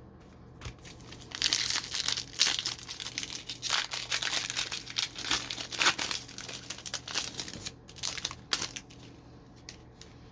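Foil wrapper of a trading card pack crinkling and tearing as it is ripped open, a dense crackly rustle that goes on for about seven seconds and then dies down to a few light rustles near the end.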